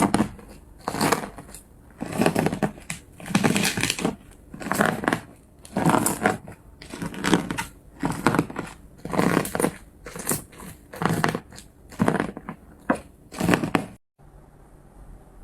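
Slime being squeezed and pressed by hand close to the microphone, a dozen or so squishes at roughly one a second. About a second before the end they stop abruptly and only a quieter steady hiss remains.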